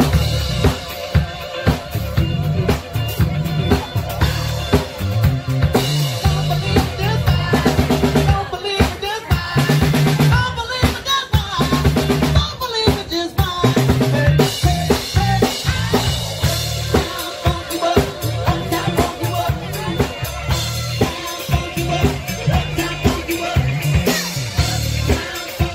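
Music with a steady drum beat and heavy bass.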